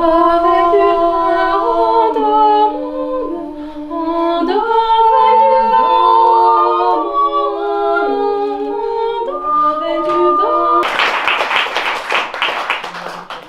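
A woman singing a slow melody unaccompanied, with long held notes that step up and down. For the last two seconds or so a loud crackling rush of noise covers the singing.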